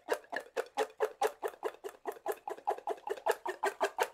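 A rapid, evenly spaced run of short pitched pops, about seven a second, from an added end-screen sound effect.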